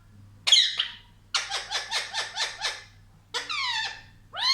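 Pet parrot vocalizing: a short shrill call, then a quick run of about nine chattering notes, then two more drawn-out calls, the first falling in pitch.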